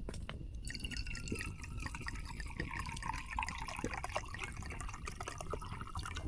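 Liquid being poured, a trickle with many small drips and a shifting pitch. It starts about a second in and stops near the end.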